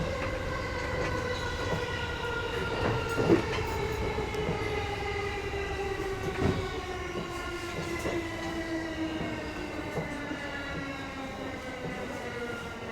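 JR East E233 series electric train slowing down. Its traction motors give a whine of several tones that falls slowly and evenly in pitch as speed drops. A few sharp knocks from the wheels on the track come through, the clearest about three and six seconds in.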